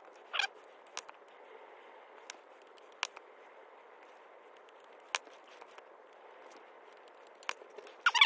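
Butane lighter flame burning with a steady soft hiss as it heats the plastic model car body to soften it for denting, with several sharp clicks and taps from handling the plastic.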